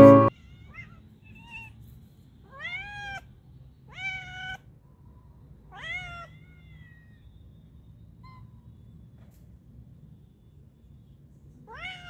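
Grey cat meowing: three meows about a second and a half apart, each swooping up in pitch, then one more near the end.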